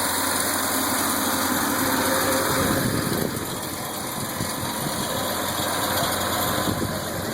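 1968 Fiat 600's four-cylinder engine idling steadily, easing slightly about three seconds in.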